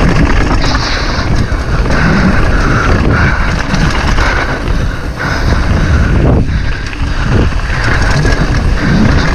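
Wind buffeting the microphone over the continuous rumble and rattle of a downhill mountain bike riding fast over rough trail.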